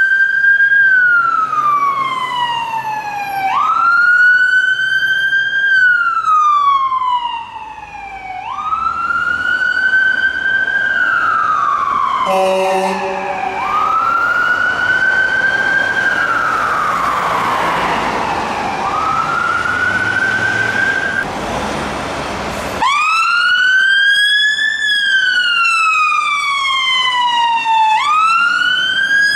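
Emergency vehicle siren on a slow wail, rising quickly and gliding back down about every five seconds. A short horn blast comes about twelve seconds in, followed by a rush of passing traffic noise, and the wail comes back louder near the end.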